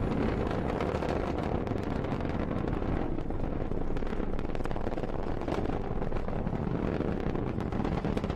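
Falcon 9's nine Merlin 1D engines in ascent: a steady deep rumble shot through with dense, rapid crackling.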